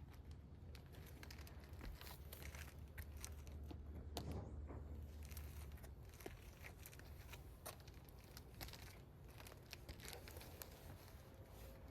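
Faint crinkling, clicks and scrapes of an asphalt shingle being handled and put back in place, with a low hum that stops about halfway through.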